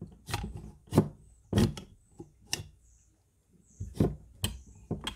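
Sharp clicks and knocks as the parts of a Daisy Avanti 753 air rifle are handled and fitted together, about seven at uneven spacing.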